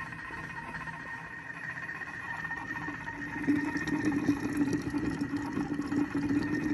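Bimby (Vorwerk Thermomix) cooking robot running at 100 °C with its blade turning slowly in reverse while spaghetti cooks in the bowl: a steady motor whine over the crackle of bubbling water. About three and a half seconds in, a louder low hum joins.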